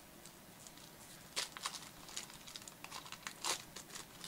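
Gold foil trading-card pack being torn open and crinkled by hand: short crackling rips and rustles that begin about a second in, the loudest near the end.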